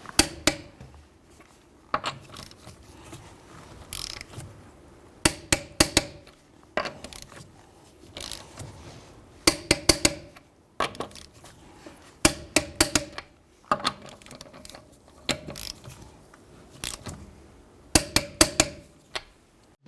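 Torque wrench with a 22mm socket tightening wheel lug nuts to 94 foot-pounds: sharp ratcheting clicks in small quick groups, repeated every second or two as it moves from nut to nut.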